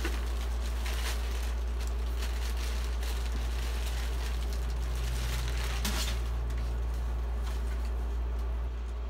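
Clear plastic wrapping rustling and crinkling in irregular bursts as a foam model-jet wing is pulled out of it, over a steady low hum that drops slightly near the end.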